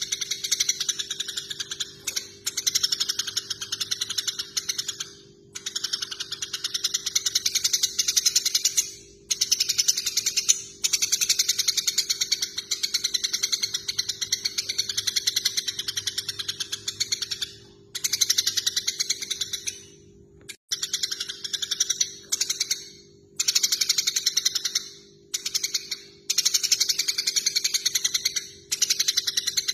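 Eurasian tree sparrows chattering in fast, rattling runs of chirps, the squabbling calls of sparrows fighting, in stretches of a few seconds broken by short pauses. A steady low hum runs underneath.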